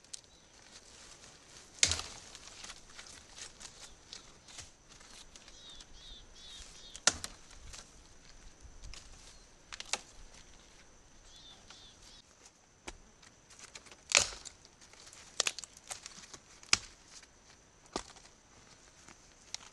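Dry dead spruce branches being snapped off by hand: about seven sharp, separate cracks a few seconds apart, the loudest about two seconds in, about seven seconds in and about fourteen seconds in.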